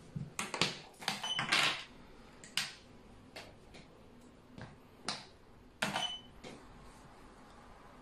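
Xiangqi (Chinese chess) pieces being moved and set down on the board: sharp clicks and knocks, a quick cluster in the first two seconds, then single clicks about once a second until about six and a half seconds in.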